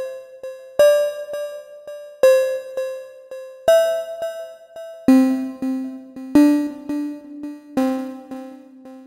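Serum software synthesizer playing a slow sequence of plucked, bell-like notes, one about every second and a half, each fading out with faint quick repeats in between. About halfway a lower note joins underneath, and the sound trails off near the end.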